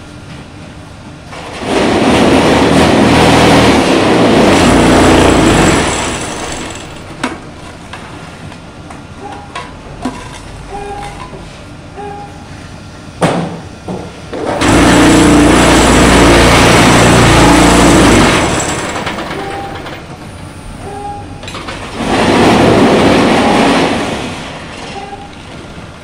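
Concrete block press machine running in three loud, steady stretches of a few seconds each, with sharp metal knocks in the quieter gaps between them as the mould and press are worked.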